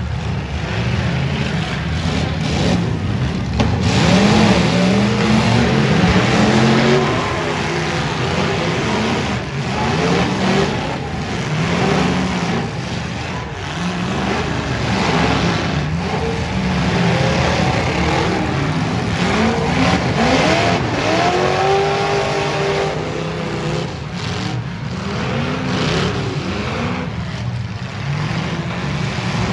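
Several V8 demolition derby cars revving hard at once. Their engines rise and fall in pitch over one another.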